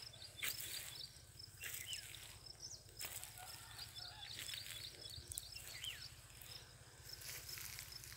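Faint rural ambience: small birds chirping over and over and a steady high-pitched insect drone, with occasional crunching footsteps on dry mulch.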